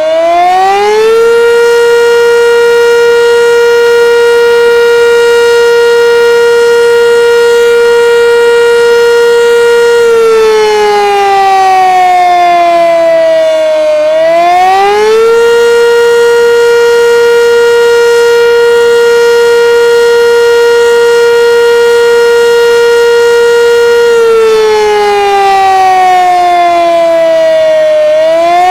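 Sentry 3V8 outdoor warning siren sounding a loud wail during a test. Its pitch rises, holds steady for about nine seconds, then slides slowly down before rising again. The cycle runs twice.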